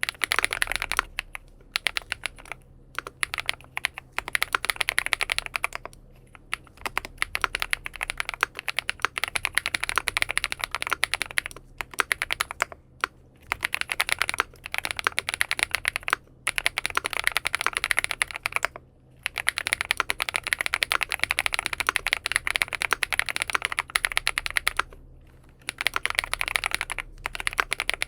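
Fast typing on a XINMENG M71 full-aluminium mechanical keyboard fitted with BSUN Bunny switches: dense runs of keystrokes, broken by short pauses every few seconds.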